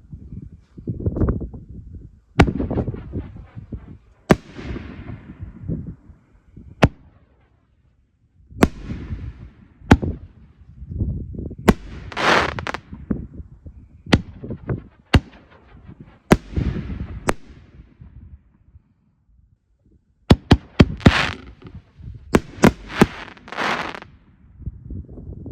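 5-inch aerial canister shells (RedApple Buddha shells) firing one after another from fiberglass mortar tubes on slow fuse: a string of sharp launch and burst bangs, each followed by a booming echo, with short pauses between shots and a rapid cluster of bangs near the end.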